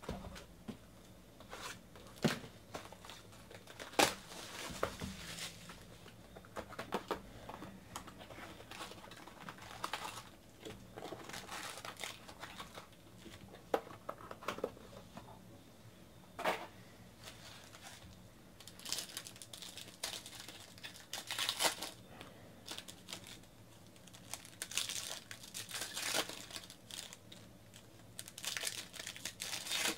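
Trading card packs being handled and torn open: foil wrappers crinkling and tearing in repeated bouts, with sharp taps and clicks of cardboard and cards. The crinkling gets busier in the second half.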